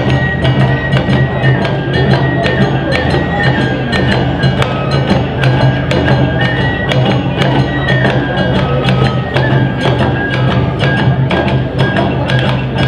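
Awa odori festival music: a high, held flute melody over quick, steady hits of a small gong and drums.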